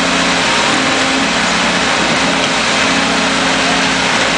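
Engine of a small backhoe running steadily, loud and close, with a steady low hum that wavers slightly as the bucket works.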